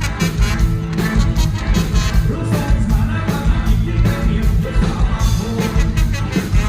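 Live Thai ramwong dance band playing with a steady beat, a singer's voice over the band.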